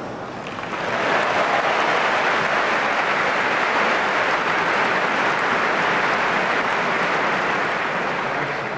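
Tennis crowd applauding at the end of a point, swelling about a second in and then holding steady.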